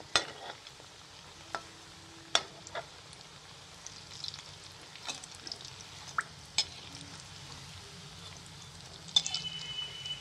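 Bread-wrapped potato cutlets deep-frying in oil on medium-low heat, giving a steady sizzle. A metal slotted spoon knocks against the wok about five times as they are turned, with a cluster of clicks and a short scrape near the end.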